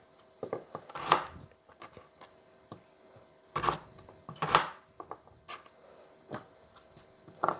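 Chef's knife slicing raw carrot into rounds on a plastic cutting board: irregular chopping knocks, each a short sharp thud of the blade meeting the board, spaced unevenly with the loudest ones about a second apart.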